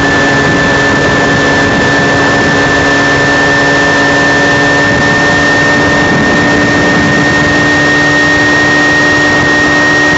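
Small aircraft's engine and propeller running steadily in level flight, heard loud and close with rushing air, a steady high whine over an even drone.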